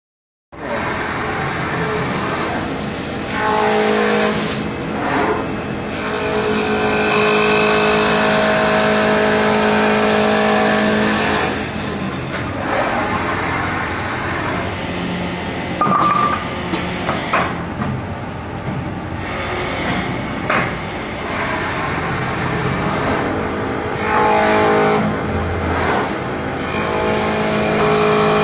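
Automatic-feeding CNC wood lathe turning a wooden blank: a steady machine hum with a few steady tones under the noise of the cutter shaving the wood. The loudness swells and drops several times as the tool works along the piece.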